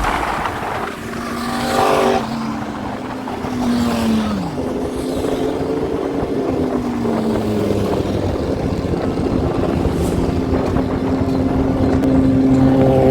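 Kymco X-Town scooter engine running on the move, its pitch falling and rising as the throttle is eased and opened, over road and wind noise.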